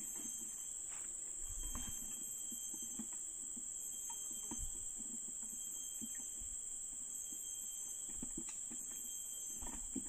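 Steady, unbroken high-pitched drone of forest insects, with light scattered knocks and rustles of handling in the foreground.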